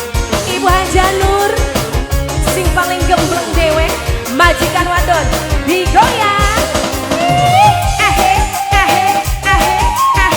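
Tarling dangdut band playing: a steady drum and bass beat under a melody of sliding, ornamented notes, with a long held note in the second half.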